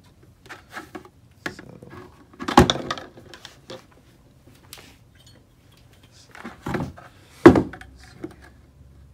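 Hard plastic buckets being handled and set down on a wooden table: a few scattered knocks and clunks. The loudest comes about two and a half seconds in, and another about seven and a half seconds in.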